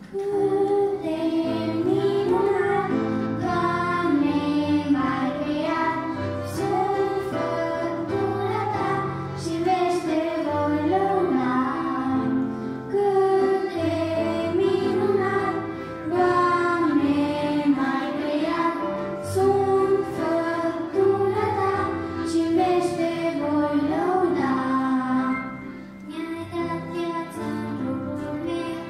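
A small group of children singing a Christian song into microphones, with instrumental accompaniment under their voices.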